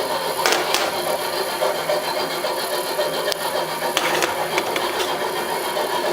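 Workshop machine tool running steadily with a motor hum, with a few sharp clicks or knocks, about half a second in and again around four seconds in.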